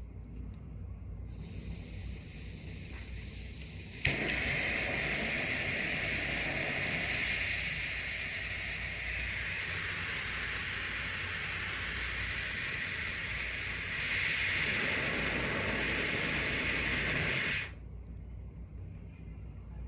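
Butane torch hissing as gas flows, with one sharp click about four seconds in, after which the hiss gets louder, then cuts off abruptly near the end.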